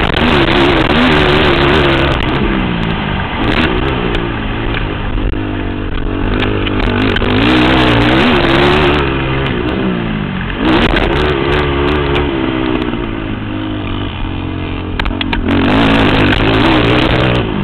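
Racing ATV engine revving hard, its pitch climbing and falling over and over as the quad accelerates, shifts and backs off through the track, with two short lulls about ten and fifteen seconds in.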